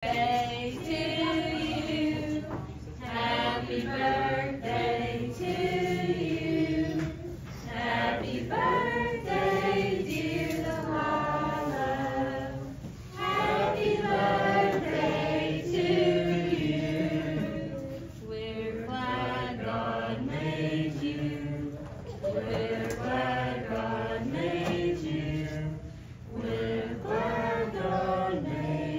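A group of voices singing together, choir-like, without a break.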